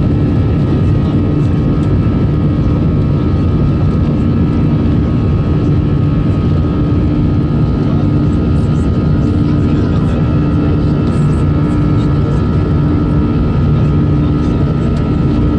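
Airbus A320's jet engines at takeoff thrust, heard inside the cabin over the wing during the takeoff roll. A loud, steady roar with a high whine running through it and a low hum that wavers about once a second.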